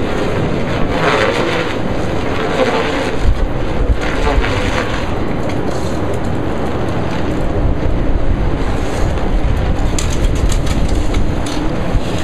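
Strong gusty wind buffeting the microphone: a loud, steady rushing noise with low rumbling that swells in a few gusts.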